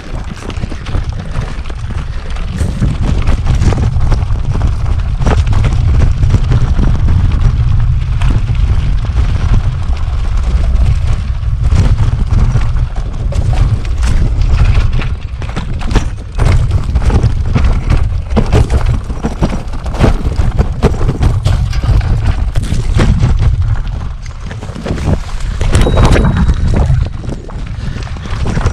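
Wind buffeting the microphone in a steady low rumble, with frequent clicks and knocks as a steel drop-bar bike on 30 mm tyres rattles over the rocks and dirt of a rough single track.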